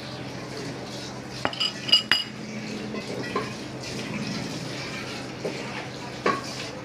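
A metal spoon clinks against a small glass bowl a few times, ringing briefly, as the last of the beaten egg is scraped out. Then come soft handling sounds of crumbly milk-powder dough being mixed by hand in a bowl, with one light knock near the end.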